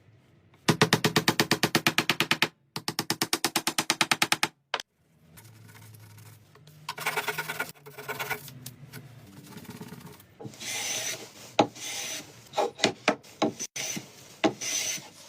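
Rapid, evenly repeated abrasive strokes on wood, about ten a second, in two runs of nearly two seconds each, then a shorter burst and, in the last few seconds, uneven scrapes with a few sharp clicks.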